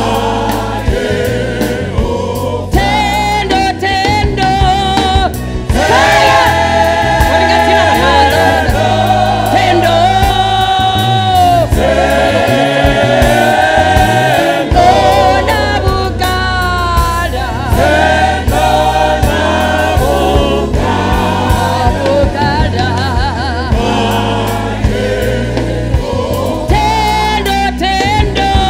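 Gospel song sung by a choir of many voices over steady low bass notes.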